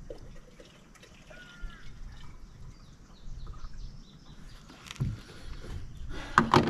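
Outdoor ambience with a low rumble and a few faint bird chirps, plus scattered small clicks. A short, loud burst of sound comes near the end.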